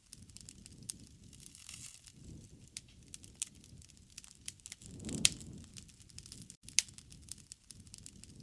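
Wood campfire crackling, with irregular sharp pops over a soft low rush of flame. A louder flare with the sharpest pop comes about five seconds in.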